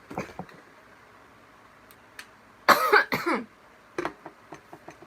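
A woman coughing: a short cough at the start, then a loud double cough a little under three seconds in.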